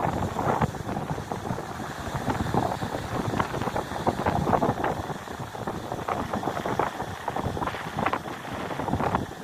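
Waves breaking and washing over a rocky shore into a rock pool, with gusty wind buffeting the microphone in uneven swells.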